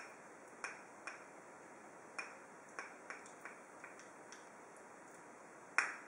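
Lemon syrup dripping from a small cup onto a loaf cake: light, irregularly spaced ticks, about ten of them, the loudest near the end.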